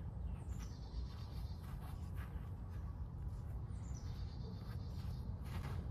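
Songbird calls: two high, thin trills about three seconds apart, over a steady low rumble, with a few faint clicks.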